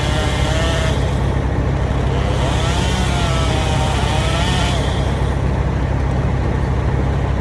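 A large engine running steadily and loudly. A higher wavering tone rises and falls over it twice.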